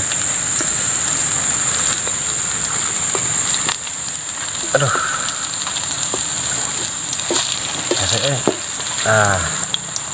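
Batter-coated salak (snake fruit) pieces deep-frying in hot oil in a wok, sizzling steadily, with sharp clicks of bamboo chopsticks turning them in the pan. A steady high-pitched tone runs over the sizzle.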